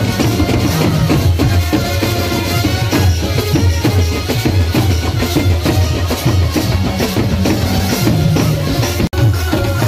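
Bengali folk drum band playing: dhol drums beaten in a steady, driving rhythm, with clashing hand cymbals. The sound drops out for an instant about nine seconds in.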